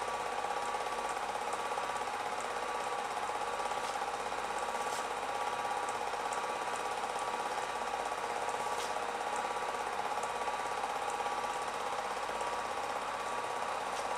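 Film projector running: a steady mechanical whir and clatter of its motor and film-pulling mechanism, with a few faint clicks.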